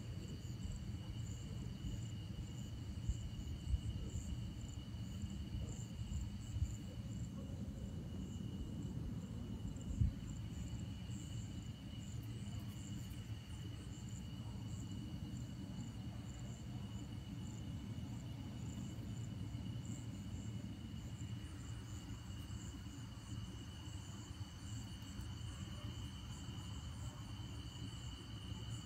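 Steady night-time insect chorus of high, unbroken trills with a faster pulsing trill above them. Under it is a low rumble, with a few short knocks in the first ten seconds; the one about ten seconds in is the loudest.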